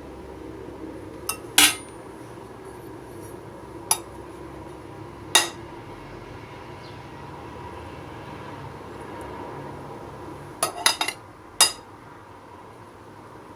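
Metal kitchen utensil clinking sharply against cookware about eight times, scattered irregularly, with a quick run of three clinks about eleven seconds in, over a steady low background noise.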